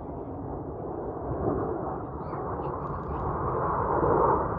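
Distant jet noise from a formation of Northrop F-5E Tiger II fighters, their twin J85 turbojets giving a deep, rumbling roar that grows louder through the few seconds as the jets draw nearer.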